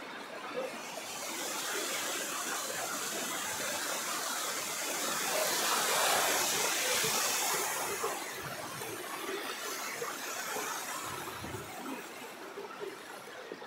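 Rushing, splashing water from a mountain waterfall or stream, swelling to its loudest about halfway through and then fading.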